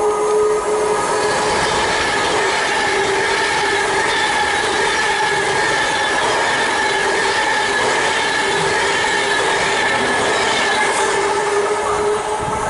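Virgin Trains Class 390 Pendolino electric train running through the station at speed without stopping: a loud, steady rush of wheels and air with a high whine held over it.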